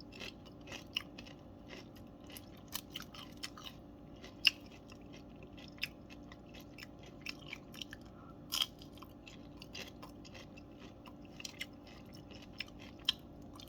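Someone crunching and chewing tortilla-chip nachos: irregular crisp crunches, with louder bites about four and a half and eight and a half seconds in.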